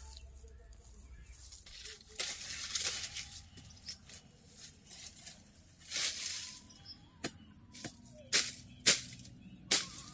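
Dry leaves and brush rustling as undergrowth is pulled and cleared by hand, with a run of sharp snaps of twigs and stems breaking near the end.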